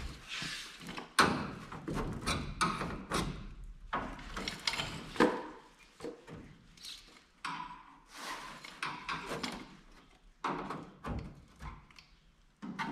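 Sheet-metal fender patch panel being pried and pushed up into place over a bus wheel well: irregular thunks, knocks and scraping of metal on metal, with a sharp knock about a second in and another about five seconds in.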